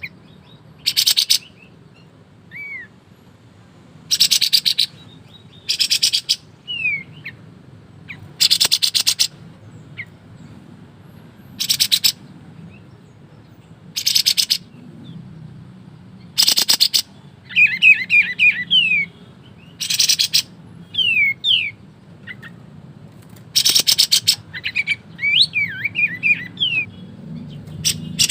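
Kapas tembak songbird singing: short, dense, rattling bursts ("ngebren") every two to three seconds, with thin falling whistles and quick twittering runs between them.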